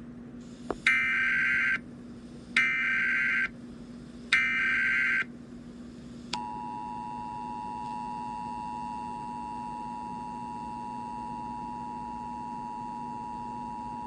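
Emergency Alert System tones: three short bursts of SAME header data about a second each, then about six seconds in the steady two-tone attention signal starts and holds, over a faint steady low hum.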